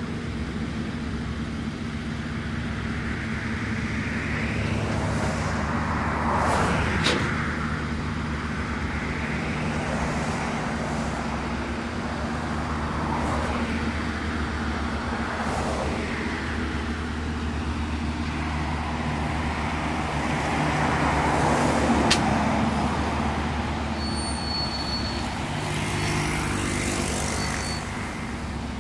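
Steady road and engine hum of a car being driven. Other vehicles swish past several times, the loudest passes about a quarter of the way in and again about three-quarters of the way in.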